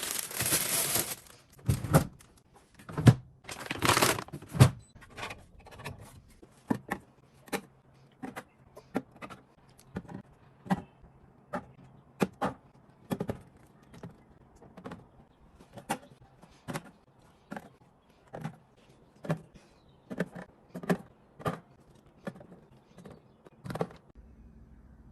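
A run of light knocks and clicks, about one a second, with a few louder rustling bursts in the first few seconds.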